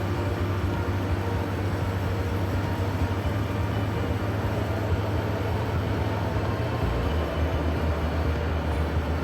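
KiHa 85 series diesel railcar running: a steady low engine drone over rail rumble, the engine note dropping slightly about seven seconds in.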